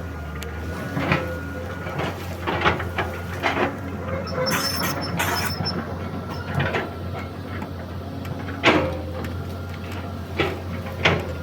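Excavator's diesel engine running steadily, with a string of sharp cracks and knocks as it works. The loudest crack comes about two thirds of the way through.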